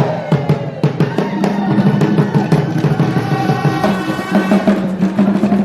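Music with busy drumming and percussion over a steady low note.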